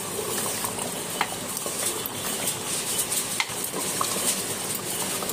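A metal ladle stirring mutton curry in an open aluminium pressure cooker while the curry bubbles and sizzles, its cooking water being boiled off. The ladle clicks against the pot a few times.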